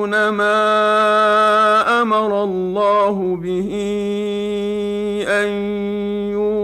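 A man reciting the Quran in the slow, melodic murattal style, holding long drawn-out vowels on steady notes, with brief breaks between phrases.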